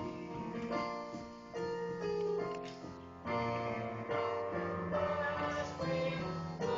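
Keyboard playing show-tune music from a stage musical's score, a melody of held notes that change every second or so over chords.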